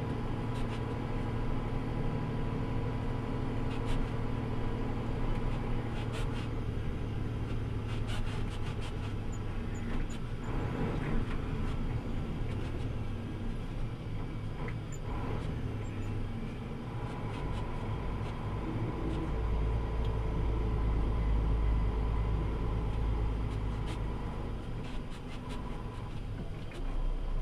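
Truck engine running steadily while driving over a snow-packed road, heard from the hood, with tyre and road noise and scattered short knocks and rattles. A deep low rumble swells about two-thirds of the way through.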